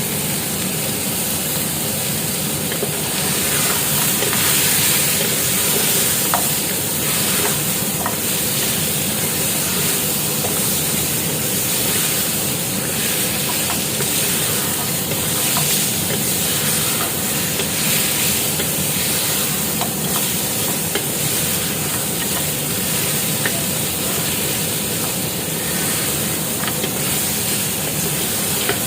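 Mutton pieces sizzling steadily with whole spices in a little oil in a pressure cooker, stirred continuously, with occasional light clicks as they are turned. This is the bhunai stage, the meat being seared dry in oil before any water goes in.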